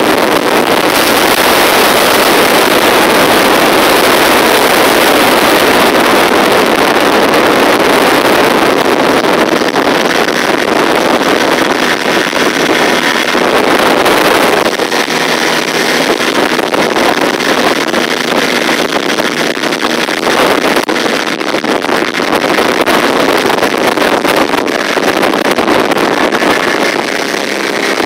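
RIB boat under way: a loud, steady rush of its motor, water on the hull and wind on the microphone, a little quieter from about halfway through.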